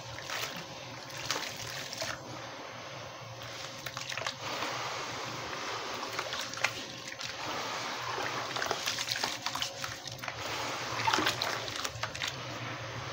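Hands crumbling and squeezing gritty wet cement in a basin of water: splashing and sloshing with many small crunchy crackles, busiest a little past the middle.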